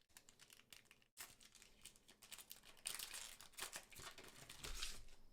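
Foil booster-pack wrapper crinkling as it is torn open, a run of faint quick crackles that grow louder and denser in the second half.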